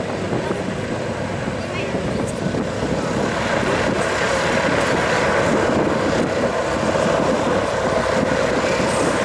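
Boeing B-29A Superfortress's four Wright R-3350 radial engines running at taxi power as the bomber rolls, a steady propeller drone that grows a little louder about three seconds in.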